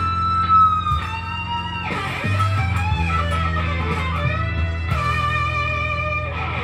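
Electric guitar lead played over a backing track with a steady bass line: long sustained notes with vibrato, a sharp drop in pitch about two seconds in, then bent notes and a new held note from about five seconds in.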